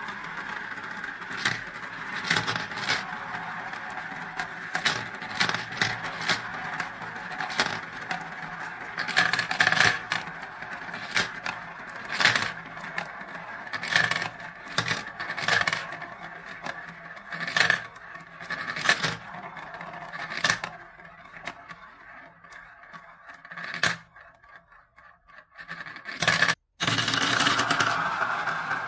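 Marbles rolling around the clear plastic funnel bowls of a marble run, a steady rolling rattle with frequent clicks as they knock together and drop into the centre tubes. About three-quarters of the way through it thins to a few faint clicks and breaks off briefly, then a fresh run of rolling starts near the end.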